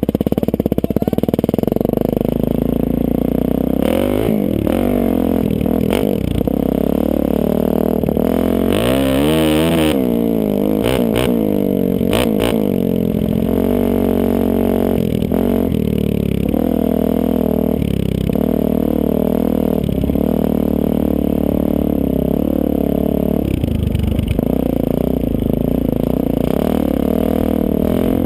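Suzuki DR-Z400E's single-cylinder four-stroke engine running through an FMF aftermarket exhaust while the dirt bike is ridden, its pitch rising and falling repeatedly with the throttle, with a bigger rise and fall about nine to ten seconds in.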